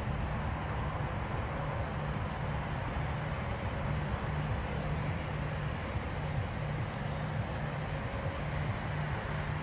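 Chevrolet pickup truck's engine idling steadily, a low even running sound.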